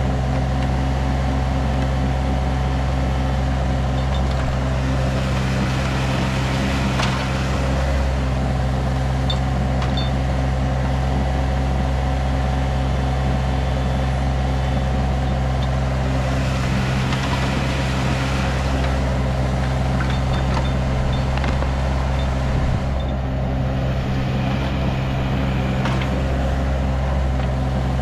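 Small diesel engine of a 6,000 lb mini excavator running at a steady high speed while the machine digs, with a few short swells of hiss from the hydraulics working under load.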